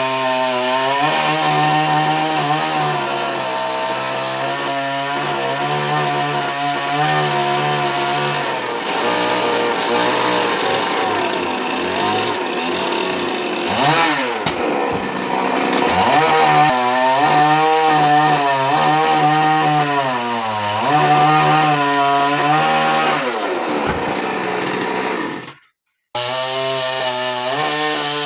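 Two-stroke chainsaw running hard while cutting coconut palm wood, its engine note sagging under load and picking back up over and over, with a couple of quick drops and rises in revs midway. It cuts out to silence briefly near the end, then carries on.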